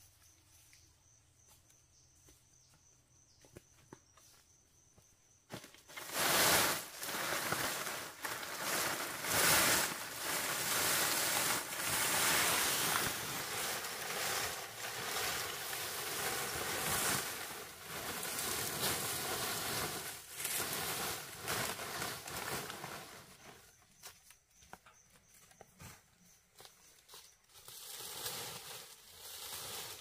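Dry palm fronds rustling and crackling as they are handled and dragged. The sound turns loud about six seconds in, dies down about three-quarters of the way through, and picks up again near the end.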